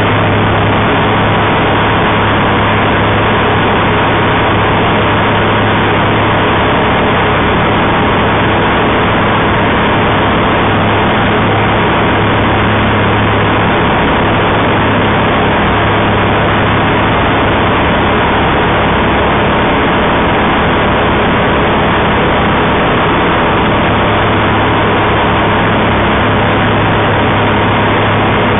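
Engine and propeller of a homebuilt Kitfox-style taildragger light aircraft running at climb power just after takeoff, heard from inside the cockpit: a loud, steady drone.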